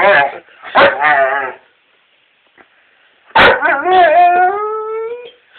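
Greater Swiss Mountain Dog vocalizing in protest with whining, howl-like calls. There are two short calls near the start, then after a pause a drawn-out call of about two seconds that rises slightly in pitch.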